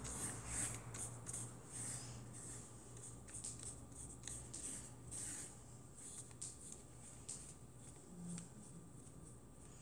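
Paintbrush bristles dragging paint across a canvas in short, irregular scratchy strokes, faint, over a low steady hum.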